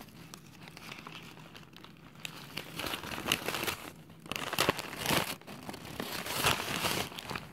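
Paper wrapping being crumpled and pulled open by hand: irregular crinkling and rustling, sparse for the first couple of seconds and busier after that.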